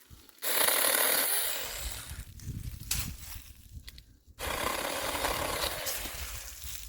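Saker mini cordless electric chainsaw cutting through tree branches in two runs. The first starts about half a second in and fades out near four seconds. After a brief stop the second starts and runs almost to the end.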